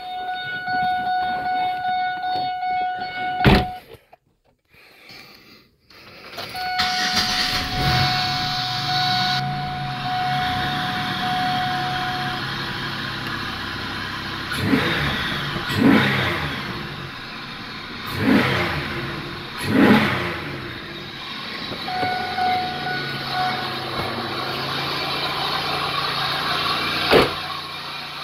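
A 3800 Series II V6 in a 2002 Pontiac Grand Prix GT, fitted with a short ram air intake, starting about six seconds in after a steady electronic tone, a click and a short pause. It idles, is revved four times in quick succession, then settles back to idle, with the tone sounding again at times and a sharp knock near the end.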